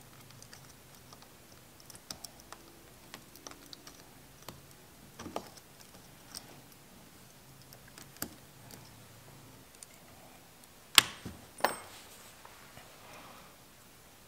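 Scattered light clicks and taps of small metal parts as a pair of Honda CX500 carburetors is fitted together by hand, the brass transfer tube and linkage rods knocking against the carburetor bodies. Two sharper, louder clicks come close together about eleven seconds in.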